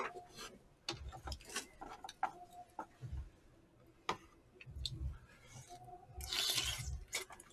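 Mukbang eating sounds: light clicks of chopsticks and spoons against takeout containers, soft chewing, and a longer, noisier slurp about six seconds in.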